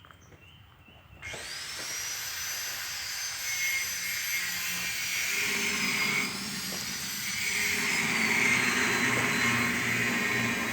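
Stone-crusher machinery running, heard suddenly about a second in: a loud, steady mechanical noise with a high whine that slowly wavers up and down in pitch.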